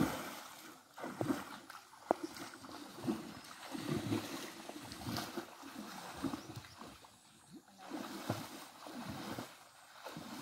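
Pond water splashing and sloshing as a man thrashes and swims through it, grabbing for fish by hand. It starts with a big splash, then comes in uneven surges with a few sharper splashes.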